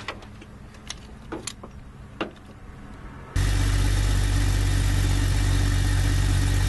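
A few light clicks, then about halfway through a 1997 Jeep Cherokee engine is suddenly heard running, idling loud and steady with no revving. It runs now that its corroded battery terminals have been cleaned.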